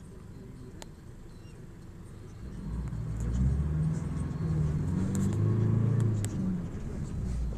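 A car driving past close by: its engine rumble swells about two and a half seconds in, holds loud for several seconds, then fades near the end.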